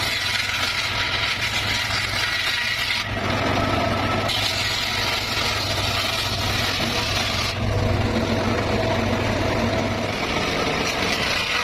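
Circular saw cutting petung bamboo over a steady low engine hum. The blade's high hiss comes in spells: about three seconds, a short break, about three seconds more, then again near the end.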